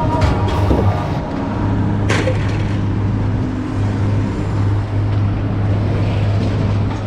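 A steady low engine hum, with a few sharp knocks in the first two seconds as scrap is unloaded from a pickup bed.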